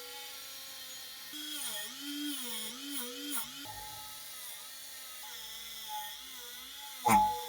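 Small electric rotary tool running, its pitch repeatedly dipping and recovering as it is pressed against the metal, with a sharp knock near the end.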